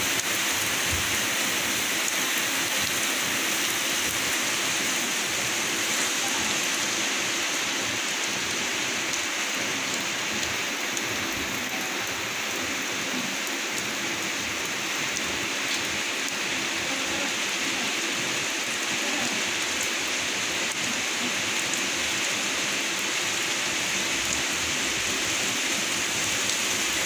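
Steady rain falling, an even hiss of rain on surfaces with scattered drop taps.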